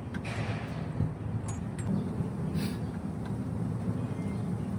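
Steady low rumble of an engine running, with a single knock about a second in and a short hiss a little past the middle.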